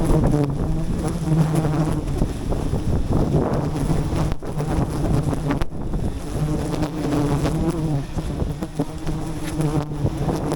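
Swarm of wild honeybees buzzing close by around a forest hive, a loud steady hum that drops out briefly twice near the middle.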